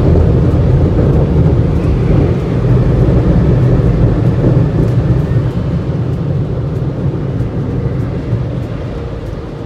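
Automatic car wash air-dryer blowers running, heard from inside the car as a loud, steady rush of air that fades over the last few seconds as the car moves away from them.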